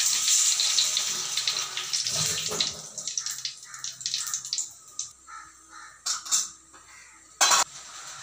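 Hot oil sizzling in a kadai. It starts as a loud hiss, dies down over about three seconds into scattered crackles and pops, and a short loud burst comes near the end.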